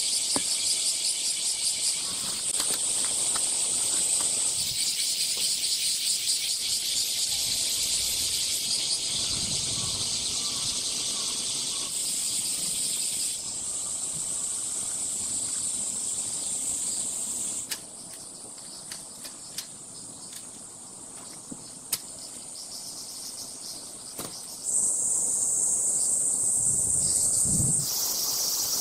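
A chorus of cicadas shrilling high and steady, the sound changing abruptly a few times where clips are cut together. In a quieter stretch in the second half there are a few sharp clicks, and a low thud near the end.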